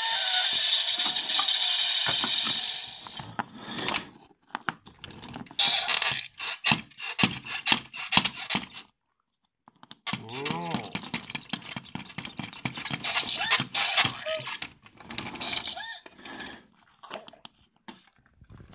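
Plastic toy figures handled and tapped against a wooden floor: a run of sharp clicks and knocks. It opens with a steady hiss lasting about three seconds, and there is a short break and a brief warbling sound about halfway.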